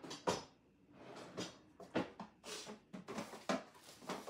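Rummaging through stored supplies: a run of light knocks and clacks among softer rustling as items are pushed about and handled.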